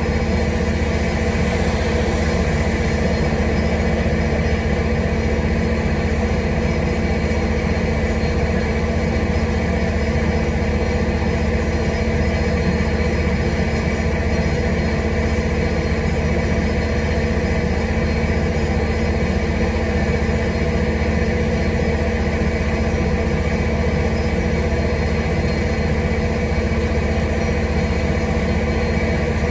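A steady mechanical hum made of several constant tones, unchanging throughout.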